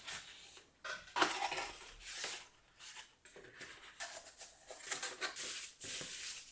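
Plastic mechanical keyboard being handled: a string of irregular light clatters and scrapes, some short and some drawn out.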